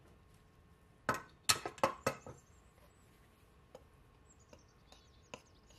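A quick run of five or so sharp clinks against a glass baking dish about a second in. Then a metal spoon scrapes softly as it stirs seasoned flour in the dish.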